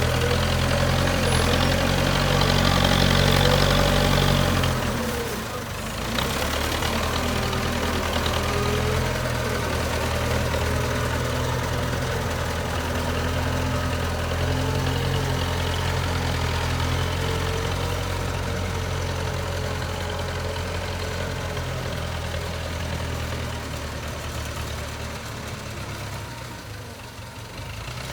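JCB 3CX backhoe loader's diesel engine running, louder and working harder for the first few seconds, easing off briefly about five seconds in, then running steadily and dropping a little near the end.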